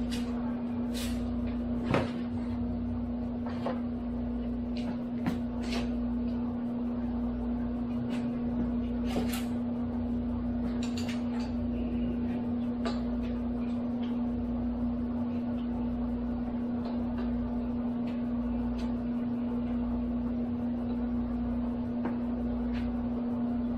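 Scattered short metallic clicks and knocks of hand tools working on a Bridgeport milling machine as a screw is taken out, over a steady hum with a slow low pulsing.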